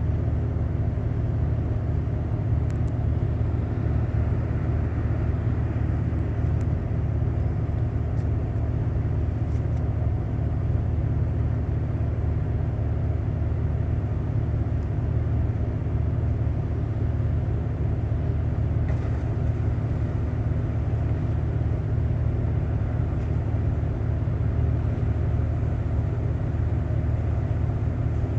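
A boat's diesel engine running steadily, a low, even drone.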